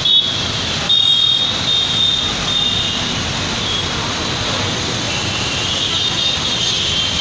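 Steady din of busy road traffic, with cars, motorbikes and auto-rickshaws passing below, and a thin high whine that comes and goes over it. The sound dips out briefly at the start and again about a second in.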